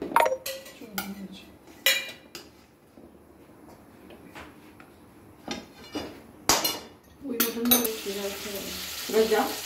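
Metal pots, plates and spoons clinking and clattering: a string of separate sharp knocks and clinks, with a steady hiss coming in near the end.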